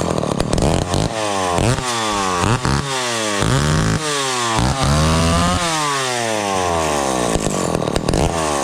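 Vintage Lombard two-stroke chainsaw engine running after a carburetor rebuild and ignition work, revved up and down repeatedly with one throttle blip after another.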